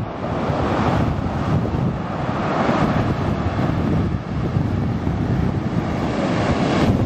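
Sea waves breaking and washing up a pebble beach in swells, with heavy wind buffeting the microphone as a steady low rumble.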